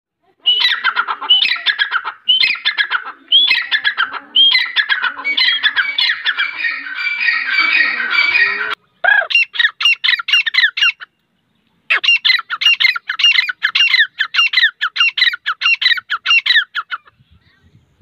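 Grey francolins calling: loud, rapidly repeated sharp notes, several a second, in bouts. They are densest and overlapping a few seconds in, with short breaks about nine and eleven seconds in, and the calling stops near the end.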